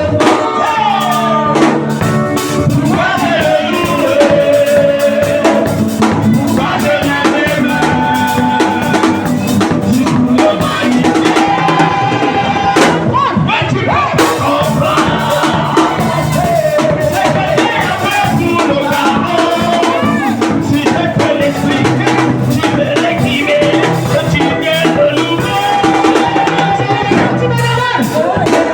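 Praise and worship music with a drum kit keeping a steady beat under pitched melody lines.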